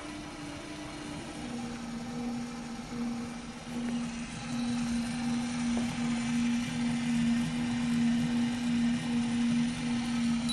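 DeWalt 18V XR brushless cordless drill running continuously, turning the drum of a homemade mini washing machine, with a steady motor hum. The pitch drops a step about a second in.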